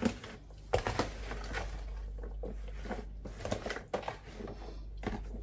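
Scattered light knocks and clicks of kitchen handling as seasoned chicken is worked and set aside to marinate, over a steady low hum.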